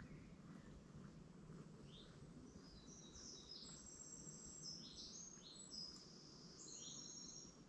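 Faint bird song: a run of short, high whistled notes mixed with quick upward chirps, over a low background hum of outdoor noise.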